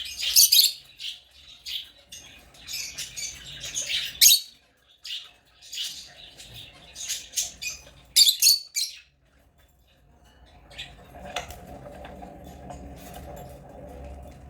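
African lovebirds chirping in quick shrill bursts for about nine seconds. The chirping then stops and a low steady hum takes over, with a few faint chirps and ticks.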